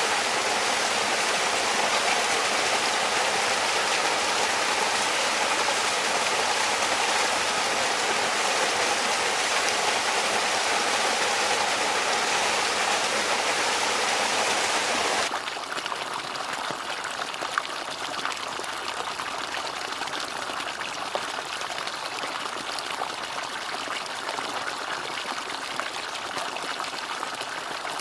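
Water running steadily from a bamboo water fountain, a continuous splashing trickle. About halfway through, the sound abruptly becomes quieter and duller.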